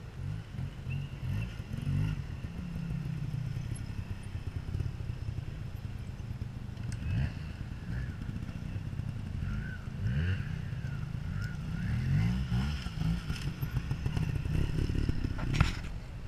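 Trials motorcycle engine revving in short bursts, its pitch rising and falling again and again as the bike is worked over rocks. One sharp knock near the end.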